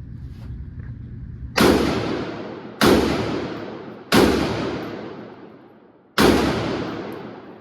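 Four rifle shots fired one at a time, spaced a little over one to two seconds apart, each sharp crack trailing off slowly.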